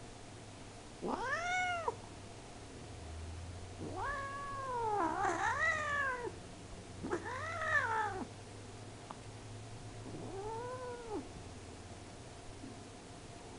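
A cat meowing four times: drawn-out meows that rise and then fall in pitch. The second is the longest and wavers.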